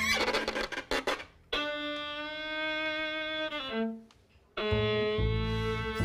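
String quintet of violins, viola, cello and double bass playing a contemporary rock-influenced piece. A run of short, sharp strokes gives way to a single held bowed note that slides down and stops. After a brief silence the whole group comes back in, with the double bass strong underneath.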